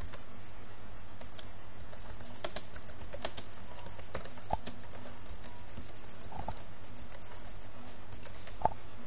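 Keys on a computer keyboard being typed slowly and unevenly, a few scattered keystrokes at a time, over a steady low hum.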